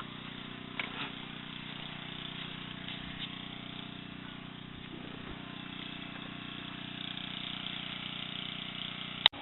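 A small generator's engine running at a steady idle, with a sharp click near the end.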